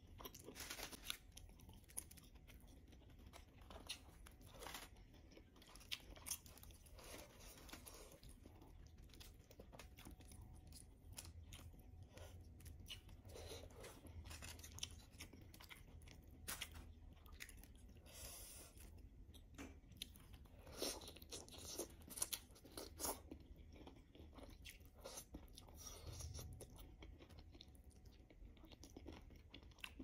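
Close-miked chewing and mouth sounds of eating baked chicken: quiet, soft clicks and smacks scattered throughout, busier and louder about two-thirds of the way through.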